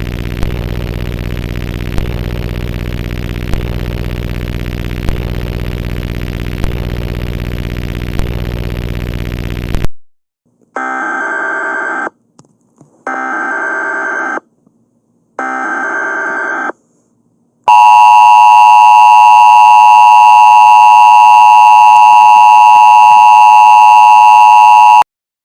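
Loud buzzing static for about ten seconds that cuts off suddenly. Then three short bursts of screechy data tones, the digital header of an Emergency Alert System message. Then the loud, steady two-tone EAS attention signal, held for about seven seconds before it stops.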